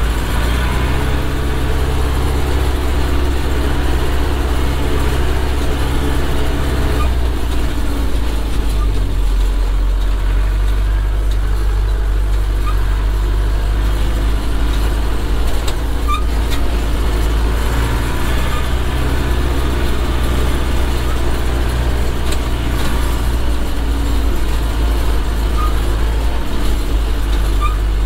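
Zetor 7211's 3.6-litre four-cylinder diesel engine running steadily under way, heard from inside the tractor cab. Its note drops a little about a third of the way in and picks up again past the middle, with a few faint squeaks now and then.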